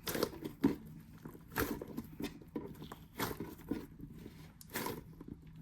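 Hands squeezing and handling a squishy toy: a series of short, irregular soft handling sounds, roughly one every half second to a second.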